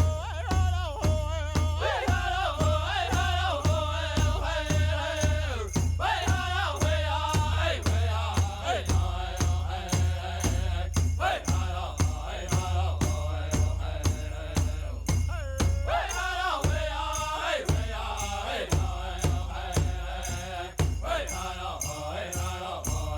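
Chant-like singing over a steady, evenly spaced drumbeat, the voice wavering and sliding in pitch in long phrases.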